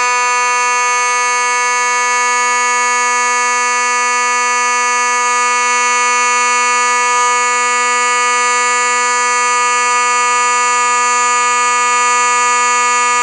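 A 1980s Simplex 2901-9833 mechanical fire alarm horn, running on 24 volts DC, sounding one loud, steady, unbroken tone.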